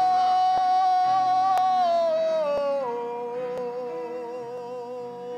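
A man's voice singing one long held note that steps down to a lower held note about three seconds in, over soft sustained backing chords, gradually growing softer. A faint tick sounds about once a second.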